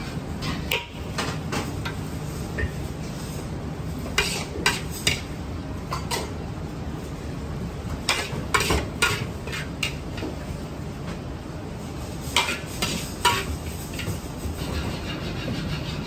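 Kitchen clatter: metal utensils and dishes clinking in irregular clusters of sharp knocks, over a steady low hum.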